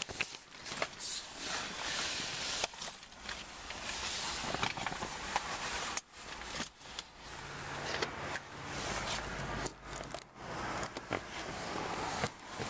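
Footsteps crunching on frozen snow with rustling and handling noise, made up of many short crunches and knocks over a steady hiss. A low hum comes in for a couple of seconds around the middle.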